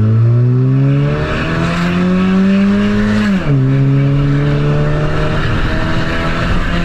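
Honda Civic LXR's naturally aspirated 2.0-litre four-cylinder with an aftermarket exhaust diffuser, pulling under acceleration. The engine note climbs, drops sharply at an upshift a little over three seconds in, then climbs again more slowly and levels off.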